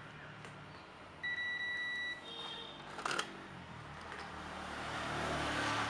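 Digital multimeter's continuity beeper sounding one steady, high-pitched beep for about a second, then a brief higher tone, as the probes meet a low-resistance path on the phone's board during a check for a short. A sharp click follows about three seconds in.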